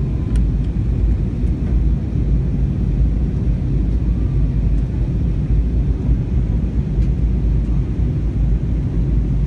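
Steady low rumble of a passenger airliner's cabin noise in flight, from the engines and the air rushing past the fuselage.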